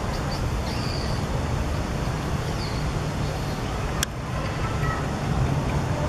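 Steady low outdoor background rumble, with a few faint high bird chirps in the first half and one sharp click about four seconds in.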